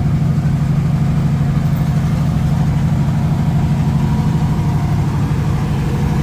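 Engine of a Ford Super Duty tow truck idling steadily close by, a low, even running note.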